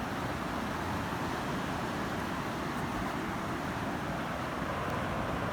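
Steady outdoor background noise: an even, low-weighted hiss with no distinct events.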